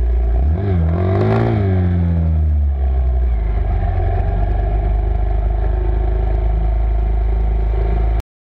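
Off-road vehicle engine revving up and down, then running at a steady pitch with a fast pulse. It cuts off suddenly near the end.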